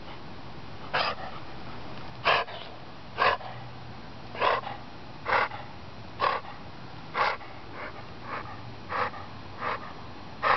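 Golden retriever's raspy, wheezy breathing: a harsh noisy breath about once a second. The owner thinks it may come from an abnormally formed throat or laryngeal paralysis.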